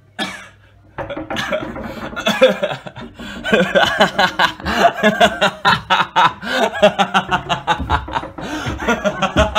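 A person laughing loudly and at length, a run of 'ha ha ha', starting about a second in.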